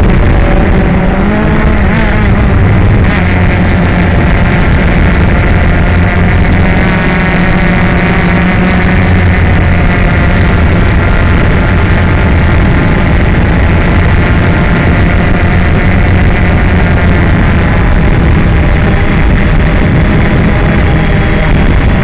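DJI Phantom quadcopter's electric motors and propellers in flight, a loud steady buzzing hum picked up by a camera on the drone itself. Its pitch wavers about one to three seconds in as the drone banks.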